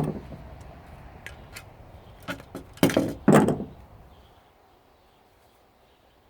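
Knocks and clatter of a steam iron's plastic and metal parts being pried apart and handled: a sharp knock at the start, a few light clicks, then two louder knocks in quick succession about three seconds in, before it goes quiet.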